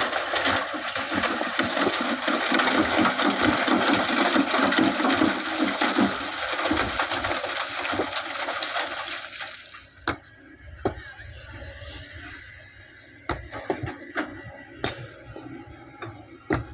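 Sand pouring from an excavator bucket into a dump truck bed: a loud rushing hiss for about ten seconds that then stops, followed by a few scattered knocks.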